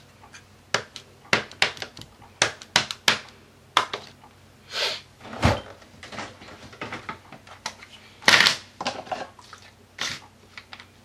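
Hands handling stamping supplies on a tabletop, a StazOn ink pad and rubber stamps: a quick run of small plastic clicks and taps, then brief scraping and rustling, with a soft thump about five and a half seconds in.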